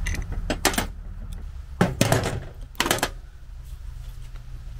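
A handful of sharp knocks and clanks of hardware being handled as the base of a telescopic antenna pole is lifted and moved, the loudest clusters about two and three seconds in, over a low steady background rumble.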